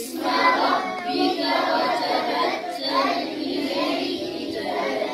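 A group of boys reciting a Qur'an verse together in a melodic chant, their voices overlapping as they repeat the line the teacher has just recited.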